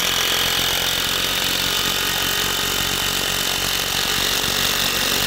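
A DeWalt cordless impact driver hammering a long structural screw into a pressure-treated wood deck joist. The fast impacting runs steadily and loudly throughout.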